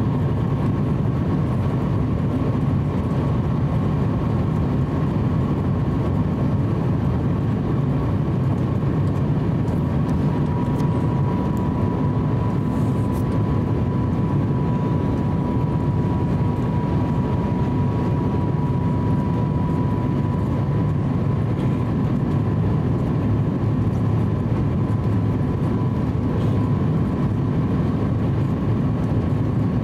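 Cabin noise inside an Airbus A350-900 on final approach, heard from a window seat beside its wing-mounted Rolls-Royce Trent XWB turbofan: a steady low rush of engine and airflow with a thin whine that drifts slightly in pitch midway.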